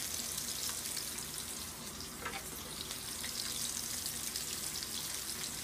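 Salmon fillets frying in oil in a pan: a steady sizzle with a few scattered small pops.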